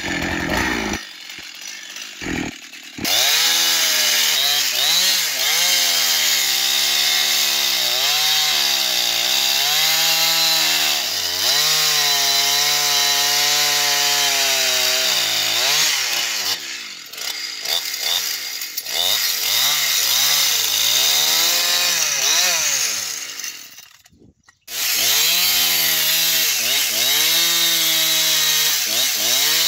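Two-stroke Husqvarna chainsaw cutting through a large log. It runs quietly for the first few seconds, then opens up to full throttle about three seconds in. The engine pitch repeatedly sags and recovers as the chain bogs in the wood. The sound fades out briefly near the end, then the saw is back at full cut.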